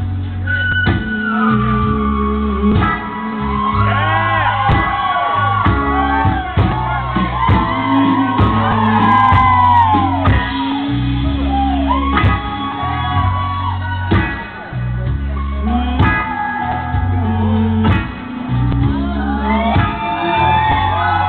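Loud music with a steady, heavy bass line playing for a stage act, with audience members shouting and whooping over it throughout, most densely in the first half and again near the end.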